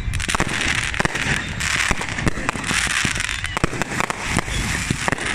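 Fireworks display: rapid, repeated sharp bangs over dense crackling.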